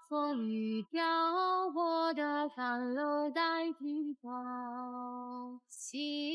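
Background music: a high female voice sings a slow melody in held notes that step up and down, with one long held note past the middle.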